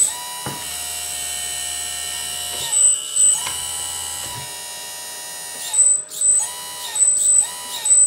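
Electric hydraulic pump of a 1/14-scale RC bulldozer whining as the hydraulics are worked to lift the whole dozer. It runs only while a control stick is pulled: a steady run for a few seconds, then several short start-stop bursts near the end as the stick is blipped.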